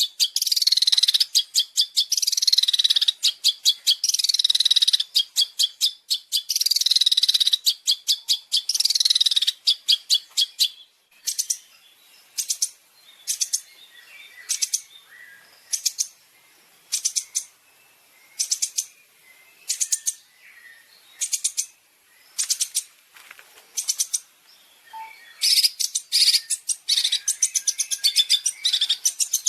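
Recorded songbird calls from a bird-song tutoring track: dense, rapid, high-pitched chattering for about ten seconds, then short sharp single calls a little more than one a second, then dense chattering again near the end.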